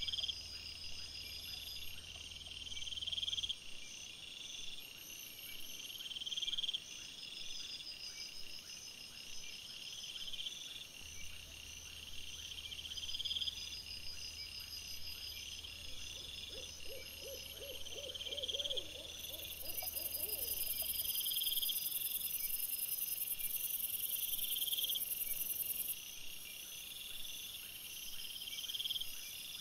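Night chorus of insects, with chirps repeating every second or two and faster trills above them. A little past halfway comes a short run of lower, evenly pulsed animal calls.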